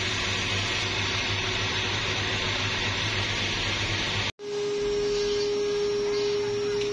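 Belt-driven electric grinding machine running steadily as a clutch lining ring is ground against it, a constant hissing grind over a low mains-frequency hum. It cuts off suddenly about four seconds in, and a steady single high hum follows.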